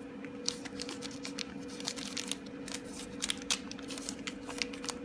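Small plastic toy packet being handled and torn open by hand: a run of irregular crinkles and crackles.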